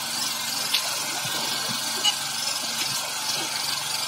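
A small engine aboard a fishing boat running steadily at idle, a low even hum. A couple of brief knocks come through, about a second in and about two seconds in.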